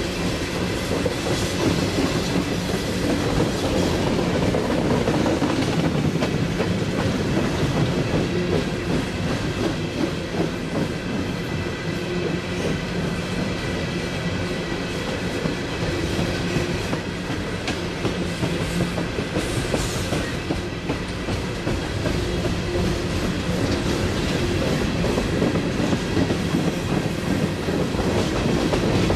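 A long freight train of empty hopper cars rolling past, steel wheels clicking over the rail joints in a steady, continuous rumble.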